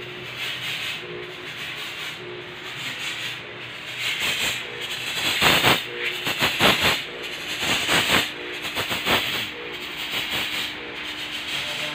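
Handheld electric fogging machine spraying disinfectant fogging solution: a steady hissing rush with a faint hum pulsing about once a second, louder for a few seconds in the middle.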